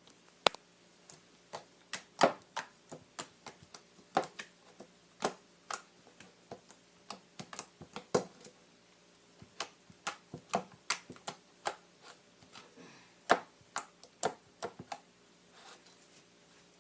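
Slime being pressed and worked by hand, making sharp, irregular popping and clicking sounds, about two to three pops a second, thinning out near the end.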